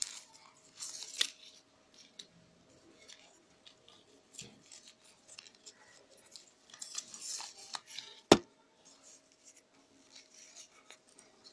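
Rolled newspaper tubes rustling and scraping in short, irregular bursts as they are woven by hand around a binding-wire petal frame. A single sharp click comes a little past the middle.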